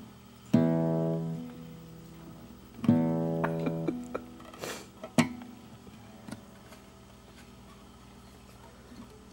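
Classical guitar's open strings strummed unevenly by a kitten brushing across them: two full strums ringing out and slowly dying, about half a second in and again near three seconds in, then a few light plucks, taps and a scrape on the strings before it goes quiet.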